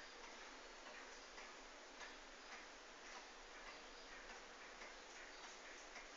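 Faint, steady ticking of a 1927 Mauthe pendulum wall clock's escapement, about two ticks a second.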